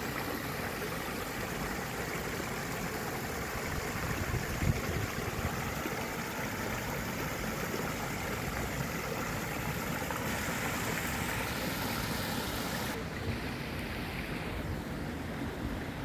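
Water of a small rock cascade falling over several tiers into a pond, a steady splashing rush. About 13 seconds in, the sound turns duller as its hiss drops away.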